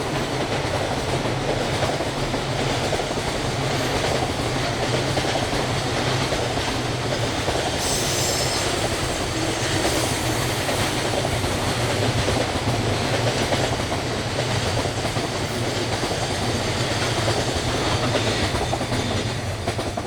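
Railway cars rolling past, their wheels clattering steadily over the rail joints, with a brief high hiss about eight seconds in.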